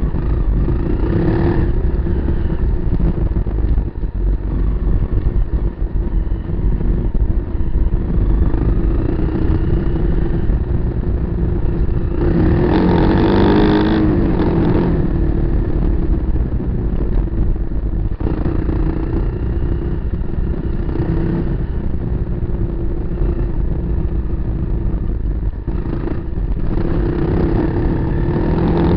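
Kawasaki KLR250's single-cylinder four-stroke engine running steadily with a low rumble, its pitch rising and wavering as it revs up for a couple of seconds about halfway through.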